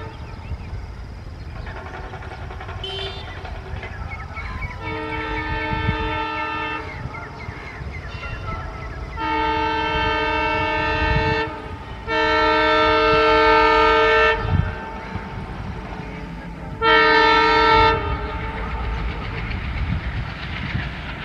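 Twin WDM-3D Alco diesel locomotives approaching with an express train, sounding a multi-tone air horn in four blasts of about two seconds each. The last blast is shorter, and the later blasts are the loudest. Underneath is the steady low rumble of the diesel engines and the train running.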